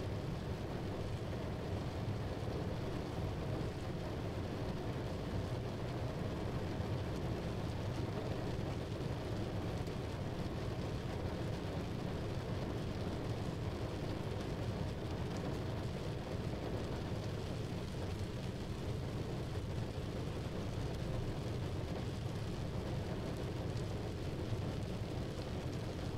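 Steady low rumbling noise that does not change: an ambient sound bed with no distinct events.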